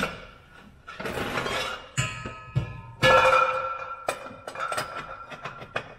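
A metal pipe scraping as it is slid through its mounting brackets, then clinking and knocking against them. Several knocks leave the pipe ringing with a clear sustained tone for a second or more.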